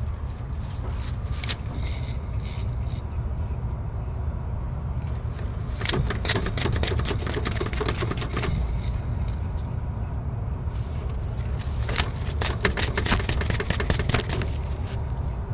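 Alternator pulley of a 2014 Chevrolet Suburban spun by hand with the serpentine belt off, giving two spells of rapid gritty clicking and scraping, about six seconds in and again about twelve seconds in. The noise is typical of a wearing internal alternator bearing, which the owner takes to be probably the rear one. A steady low rumble runs underneath.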